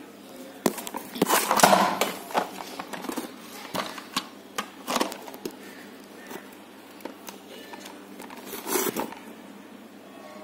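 A sheet of paper being handled and shifted, rustling and crinkling in bursts with scattered light clicks; the loudest bursts come about a second in and again near the end.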